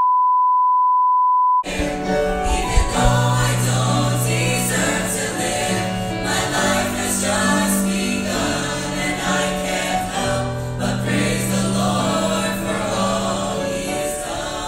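A steady, high, single-pitch test-tone beep of the kind laid under colour bars, cutting off about a second and a half in, followed by Christian worship music with singing.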